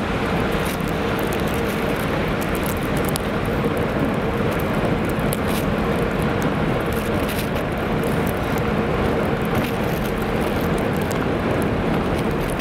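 Steady city street traffic on wet pavement: a continuous wash of passing cars, with a faint steady hum underneath.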